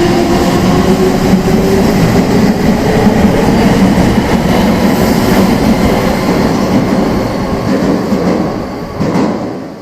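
Meitetsu limited express electric train running loud and close, with a faint motor whine that slowly rises in pitch near the start. The rumble fades over the last couple of seconds and then drops off suddenly.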